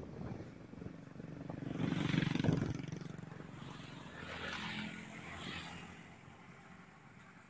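Motorcycles and a loaded pickup truck passing close along a road, their engines swelling and fading as they go by. The loudest pass comes about two seconds in, with smaller ones a couple of seconds later.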